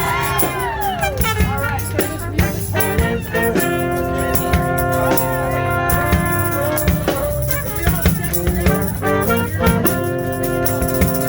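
Live band music: sustained chords with drum hits through them.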